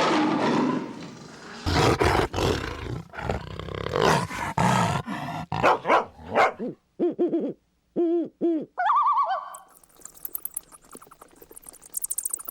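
A quick montage of animal sound effects: growls and roars of large animals first, then a run of short hooting calls past the middle, then warbling and high bird chirps near the end.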